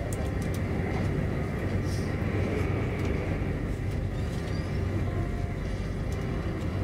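Running noise of an SJ X40 double-deck electric multiple unit under way, heard inside the carriage: a steady rumble of wheels on rail with a low electric hum underneath.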